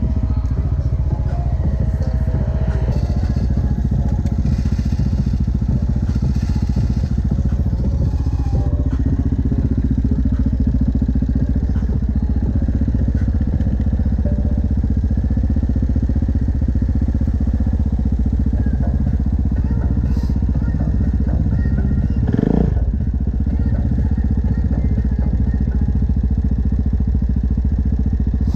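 Yamaha Grizzly ATV engine idling steadily, with one brief louder surge about three-quarters of the way through.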